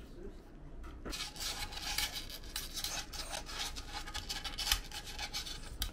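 A toy poodle licking and snuffling at food on small ceramic plates: a busy run of wet rubbing and scraping strokes starting about a second in, with one sharper knock near the end.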